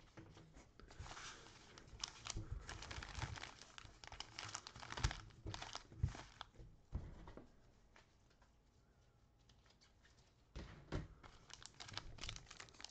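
Foil trading card packs crinkling as gloved hands pick up and shuffle them, in irregular bursts with two sharper crackles around five and six seconds in. A quiet pause of a few seconds follows, then the crinkling starts again near the end.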